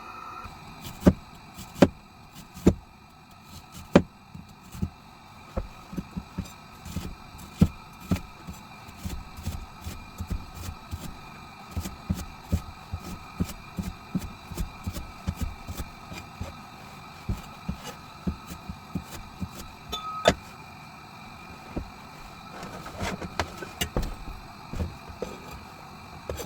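Irregular sharp taps, a few loud ones among many fainter ones, over a faint steady hum.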